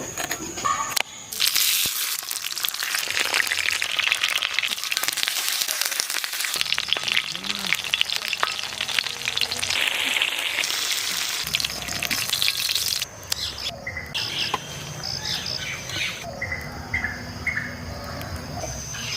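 Food frying in hot oil in a pan: a loud, steady sizzle with crackling that starts about a second in and drops off about two-thirds of the way through, leaving a softer sizzle with short high chirps.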